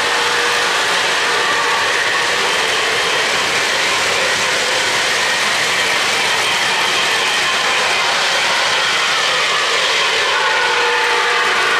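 O-gauge model trains running on three-rail track: a steady metallic clatter of wheels rolling over the rails as a long freight train passes close by.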